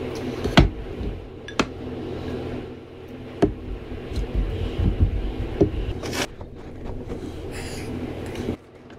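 A spoon scooping cooked basmati rice from a glass bowl and knocking it onto a ceramic plate, with several sharp clicks and taps of metal on glass and plate. Under it runs a steady low hum that cuts off near the end.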